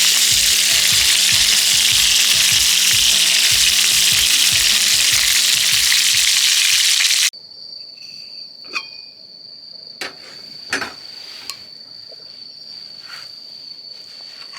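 Meat sizzling loudly in a hot pan, with music underneath. It cuts off abruptly about seven seconds in, leaving a steady high insect trill and a few light clicks.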